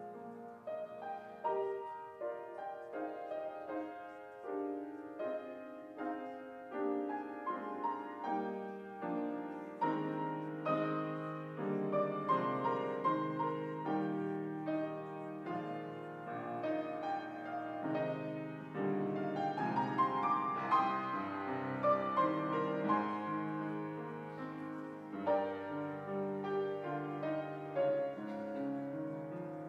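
Solo grand piano piece played with chords and moving notes, growing louder a little past the middle and easing off toward the end.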